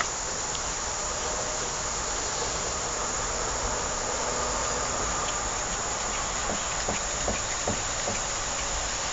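A steady, even hiss of background noise, with a few faint light clicks about six to eight seconds in.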